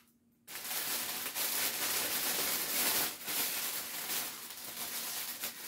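Clear cellophane gift-basket bag crinkling as it is gathered and twisted closed at the top by hand. It starts suddenly about half a second in and goes on unevenly.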